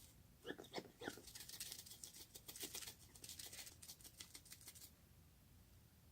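Slime being squished and worked by hand: a quick run of wet clicks, crackles and small pops that stops about five seconds in.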